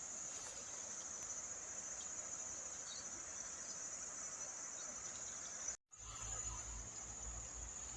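Faint, steady high-pitched insect chorus, a continuous shrill chirring. It drops out for an instant about six seconds in, and a low rumble joins it afterwards.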